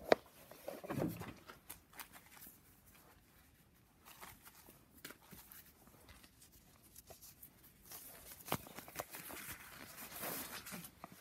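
Scattered clicks and light metal knocks from a wrench and the loosened oil filter housing being worked off the cylinder head, with a sharp click at the very start and a rustling stretch near the end.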